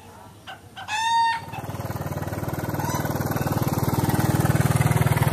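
A rooster crows once about a second in. Then a small motorcycle engine comes in, running with a steady pulse and growing louder as it rides closer.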